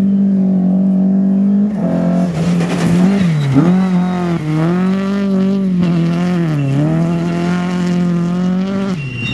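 Rally car engine running hard at high revs on a gravel stage, its pitch dropping briefly and climbing back again several times.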